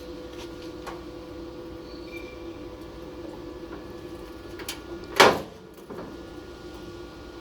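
A car door being shut: one loud, short clunk about five seconds in, over a steady hum and a few light clicks.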